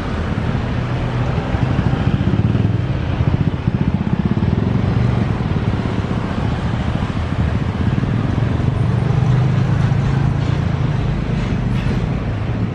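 Road traffic crossing a railway level crossing: big intercity buses and motorcycles running their engines as they pass over the tracks, with a steady low hum.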